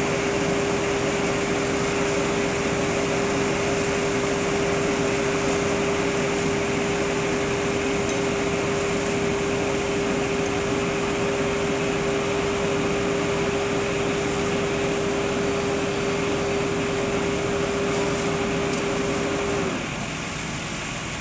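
Steady mechanical din of fire apparatus running at a fireground: engines driving their pumps while hose lines and a ladder pipe spray water. A steady single-pitched hum sounds over it and cuts off suddenly about twenty seconds in, leaving the din a little quieter.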